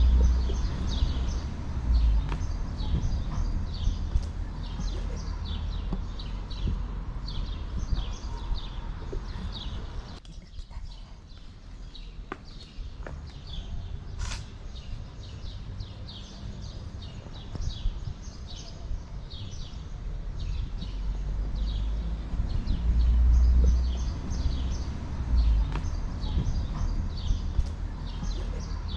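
Small birds chirping busily in many short, quick calls over a low rumble. The rumble swells near the start and again about 23 seconds in, and drops away for a few seconds in the middle, where a single sharp click is heard.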